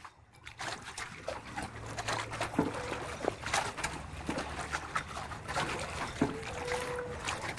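Small waves of Lake Zurich lapping and splashing at the shore, a steady wash broken by many small sharp splashes.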